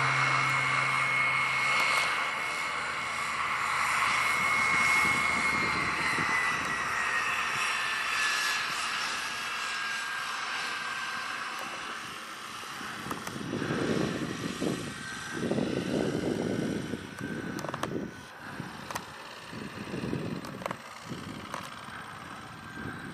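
Pratt & Whitney PT6 turboprop of an Air Tractor AT-802A crop-duster running while the plane taxis: a steady high turbine whine that drops a little in pitch about six seconds in. In the second half, uneven rumbling surges come and go.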